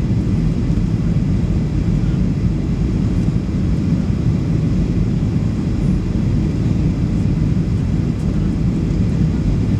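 Steady, low cabin noise of a Boeing 737 MAX airliner on its landing approach: engine and airflow noise heard inside the passenger cabin.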